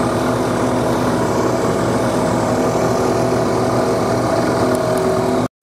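Abrasive sectioning saw with an aluminum oxide resin-bonded cut-off wheel cutting through a 1045 steel specimen under coolant spray: a loud, steady machine noise with a low hum of held tones. It stops abruptly near the end.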